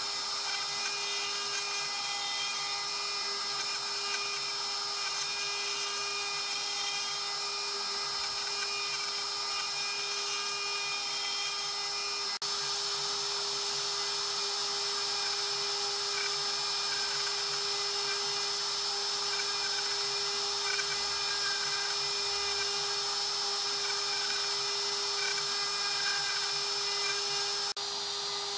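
Inventables X-Carve CNC router's spindle running at a steady high whine while its end mill cuts through a wooden board.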